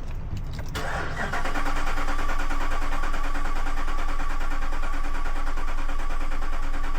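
Ram 1500's V8 being cranked over on the starter, with a steady even pulse from the cylinders coming round on compression, starting about a second in. It is cranked to capture intake vacuum pulses for chasing a cylinder 3 misfire.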